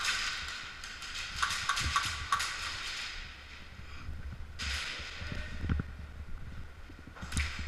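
Bursts of scuffing and rustling noise with scattered knocks, like hurried footsteps and gear moving against a body-worn camera.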